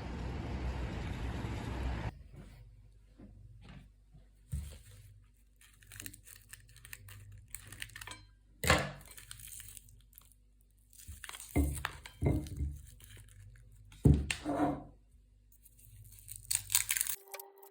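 A steady rushing noise that cuts off about two seconds in, followed by scattered knocks, clicks and crinkling and tearing sounds, like packaging being handled and torn open in a small room.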